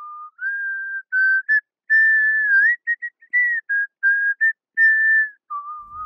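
A solo whistled tune, one clear note at a time, stepping and sliding between pitches with short breaks between phrases, and nothing else under it.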